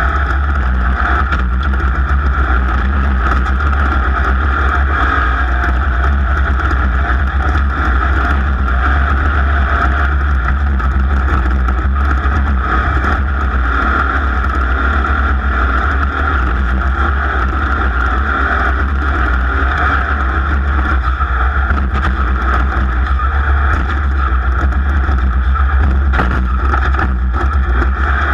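A racing vehicle's engine running hard at a steady, unchanging pitch, heard close up.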